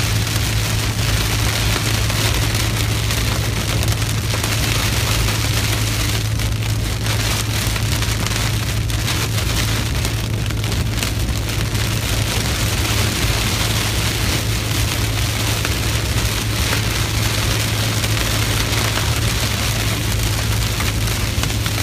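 Heavy rain pelting the windshield and roof of a moving Ford F-150 pickup, heard from inside the cab as a steady dense hiss. A steady low drone from the truck on the road runs underneath.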